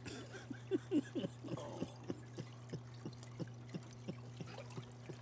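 Water trickling and dripping in a hot tub, small drips about three a second over a steady low hum.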